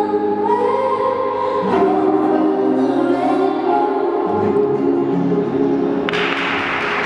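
Competition music with a choir singing long held notes, played over a loudspeaker. About six seconds in, applause breaks out.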